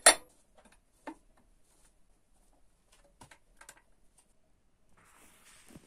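A few sparse metallic clicks and light knocks as gloved hands handle the steel milling attachment and vise on the lathe's carriage, with a sharp clank at the start and a small clatter about a second in.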